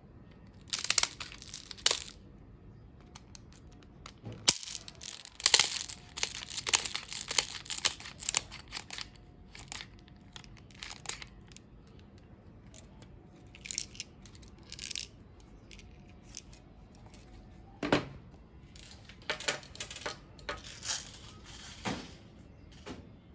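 Irregular bursts of clicking and rattling from handling a mini airsoft BB loader and its plastic BBs, densest in the first half, with a sharper knock later on.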